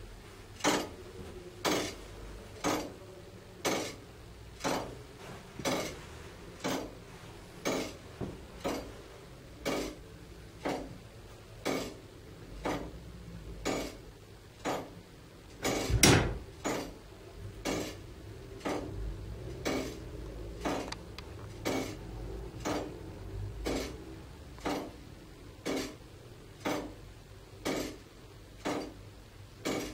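Church tower clock movement ticking: a steady, even run of sharp metallic ticks, with a louder beat about once a second. About halfway through comes one heavier, deeper clunk from the mechanism.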